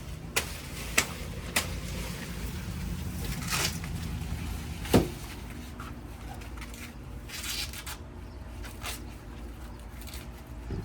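A series of sharp clicks and knocks, three close together at the start and the loudest about five seconds in, with a couple of brief rustling noises between them, over a low steady hum.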